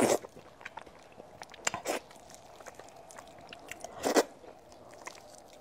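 Close-miked mouth sounds of someone biting and chewing pieces of saucy salmon head, with soft wet clicks and three louder bites or slurps: right at the start, about two seconds in, and about four seconds in.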